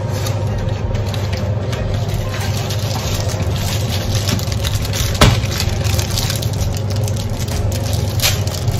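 A packet of rolled puff pastry being unwrapped, with rustling, crinkling and handling clicks and one sharp knock about five seconds in. A steady low hum runs underneath.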